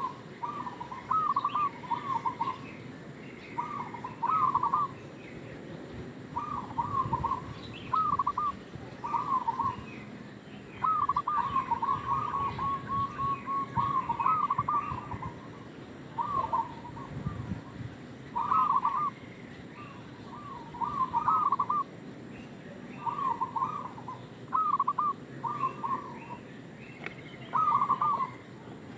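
Zebra dove (perkutut) cooing: short clusters of rapid staccato notes, repeated every second or two, with one longer rolling run about eleven seconds in.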